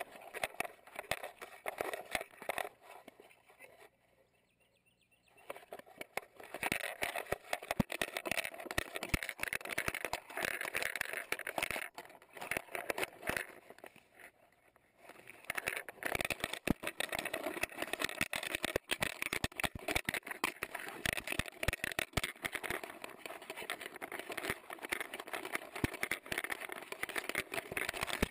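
Rustling, scraping and knocking from a GoPro camera carried on a moving dog, its housing jostled by the dog's movement. The noise is irregular and crackly, with brief drops to near silence about four seconds in and again around fifteen seconds.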